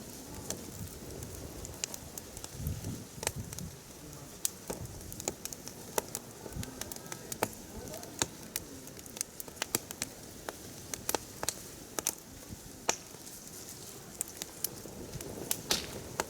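Firewood burning in an open campfire, crackling with irregular sharp pops, several a second, over a soft steady hiss of the flames.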